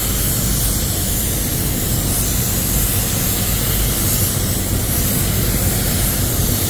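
Compressed-air automotive paint spray gun spraying, trigger held, giving a steady loud hiss of atomising air. The hiss cuts off suddenly at the very end as the trigger is released.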